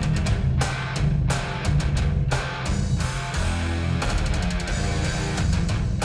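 Rock music with drum kit, guitar and heavy bass, with a steady beat, played back through a pair of Elfton Vegas II four-way hi-fi loudspeakers and picked up by room microphones.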